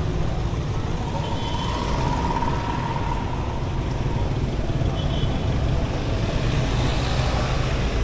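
Street traffic noise: motor vehicles running and passing in a steady, continuous din.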